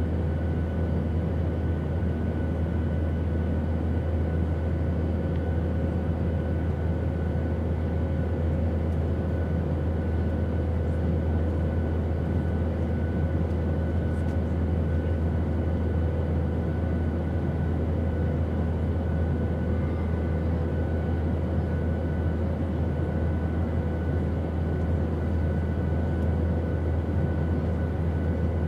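Steady, unchanging drone of an airplane in flight: engine and airflow noise with a deep low rumble and a few faint steady hums above it.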